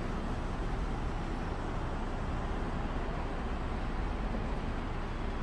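Steady road traffic noise: an even hiss and rumble of passing vehicles, with no distinct events.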